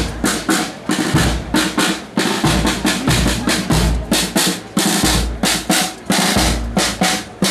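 Marching band's drum section playing a steady march beat on snare drum and bass drum, with snare rolls and rimshots over deep bass drum strokes.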